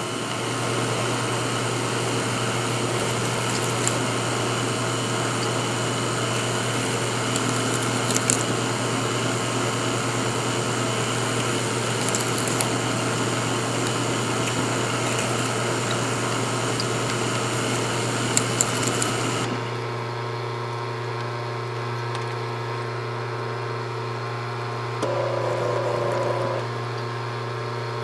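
Machine running with a steady low hum and a broad hiss, with a few faint clicks; about two-thirds of the way through the hiss drops away and the hum carries on alone.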